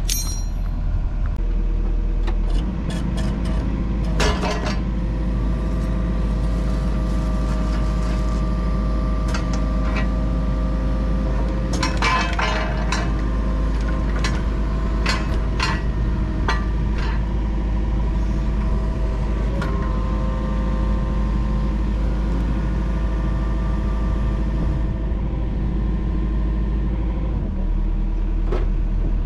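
Yanmar mini excavator's diesel engine running, picking up speed about three seconds in and settling back near the end, with a hydraulic whine while the stick and thumb are worked. Sharp metal clinks come now and then.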